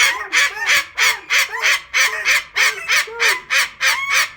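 Cockatoo screeching in a fast, unbroken series of harsh calls, about four a second.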